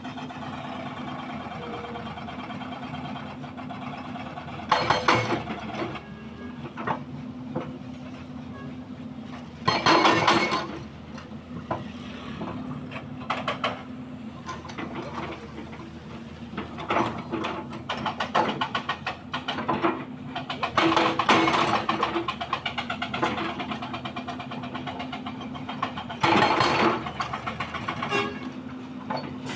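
Diesel engine of a heavy earthmoving machine running steadily, with several loud harsh bursts of scraping and clattering, the loudest about ten seconds in and around twenty to twenty-three seconds in.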